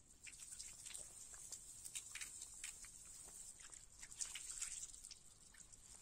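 Faint outdoor ambience: scattered short chirps and clicks over a steady high-pitched hiss.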